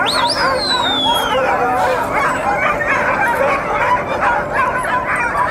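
A yard full of tethered sled dogs barking and yipping at once in a loud, continuous chorus, with one high whine near the start that slides down in pitch.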